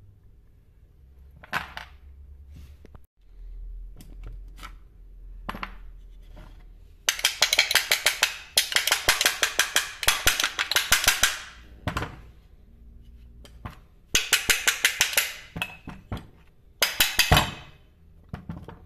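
Hand work on a disassembled chainsaw engine block: a few single knocks, then three bursts of rapid, sharp metallic clicking, about ten clicks a second, the longest lasting four seconds or so.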